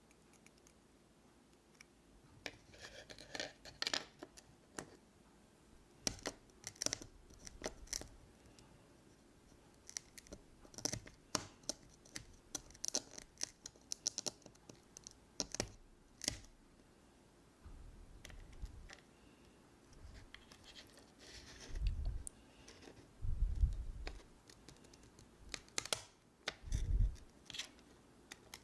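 Crisp clicks, scratches and small cracks from hard dalgona sugar candy being handled and broken, with a few dull thumps in the second half.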